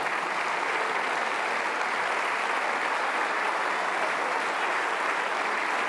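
Many people applauding steadily, a dense even clapping from a large hall full of people.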